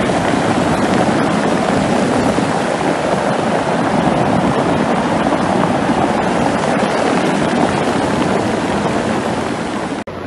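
Muddy flash-flood runoff after heavy rain, rushing over a road and down a channel: a loud, steady rush of churning water. It cuts out briefly near the end.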